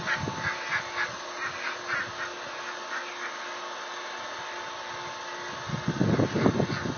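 Ducks quacking in a quick run of short calls, about three or four a second, which fade out after about three seconds over a steady faint hum. A louder low-pitched burst of noise comes in about six seconds in.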